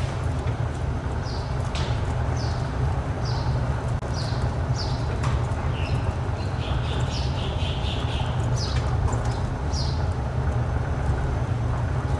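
A bird calling repeatedly with short, high, falling chirps about once a second, with a quick run of chirps about seven seconds in, over a steady low rumble.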